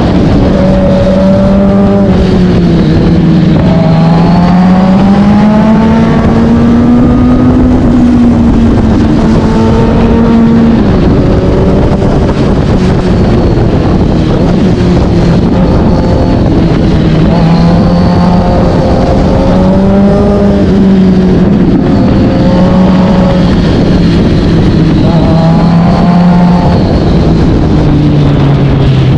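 Kawasaki Z900's inline-four engine through an SC-Project S1 exhaust, riding on the road. The engine note rises and falls repeatedly as the bike accelerates, shifts and rolls off, over a steady rush of wind and road noise.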